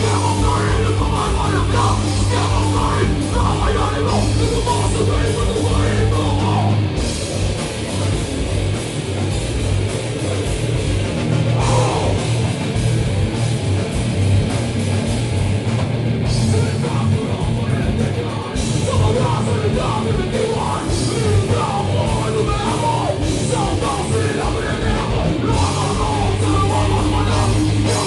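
Live hardcore-metal band playing loud: distorted electric guitars, bass and a pounding drum kit.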